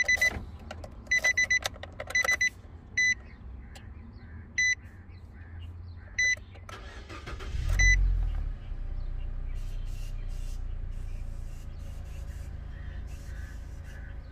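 A car's warning chime beeps in quick runs, then in single beeps about every second and a half. About eight seconds in, the 2015 Nissan Versa Note's 1.6-litre four-cylinder engine cranks briefly and catches, then settles into a steady idle. The car is now starting after an engine-computer repair cured a crank-no-start fault.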